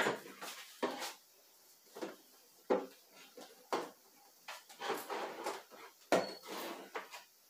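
Plastic hair-product bottles and jars being set down and shuffled on the shelves of a small wall-mounted cabinet: a string of about a dozen light, irregular knocks and clatters.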